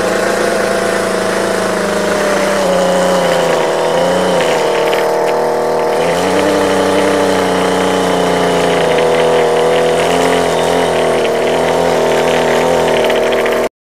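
Weed eater with an edger attachment running steadily as its blade cuts a shallow trench through lawn turf, its engine pitch dipping briefly about four seconds in. It cuts off suddenly near the end.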